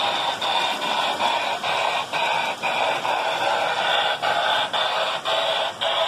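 Lionel Electronic Sounds of Steam tender playing its loud electronic steam chuff: a hissing noise pulsing about twice a second, in step with the running locomotive.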